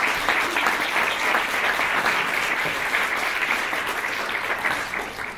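Audience applauding, many people clapping at once, the applause dying away near the end.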